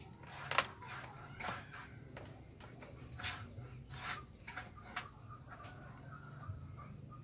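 Bamboo cricket-box lids and slats clicking and knocking as fingers handle them, a few separate sharp clicks, the loudest about half a second in.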